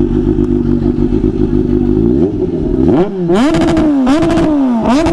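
Kawasaki Z H2's supercharged inline-four idling steadily, then revved: the pitch climbs a little after two seconds in, followed by a series of quick throttle blips. Its stock exhaust still carries the catalytic converter.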